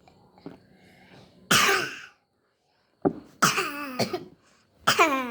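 A child coughing: one cough about a second and a half in, then a string of coughs from about three seconds in, some with a voiced, falling tone. The child is sick with a cough.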